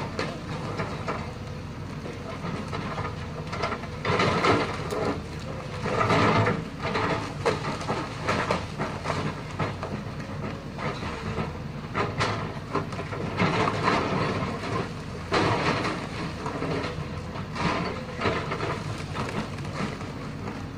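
Lonking excavator's diesel engine running steadily while its bucket scrapes and breaks rock, with irregular loud clattering and crashing of rock and metal, the loudest stretches about 4, 6, 12 to 14 and 15 to 16 seconds in.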